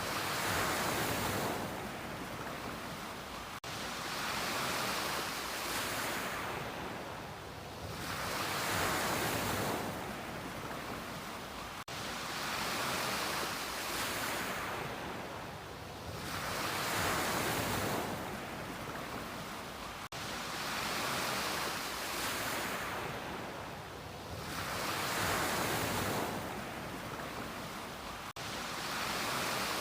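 Ocean waves breaking and washing on a beach in a steady, regular rhythm, swelling to a peak about every eight seconds with smaller surges in between. A momentary dropout recurs about every eight seconds.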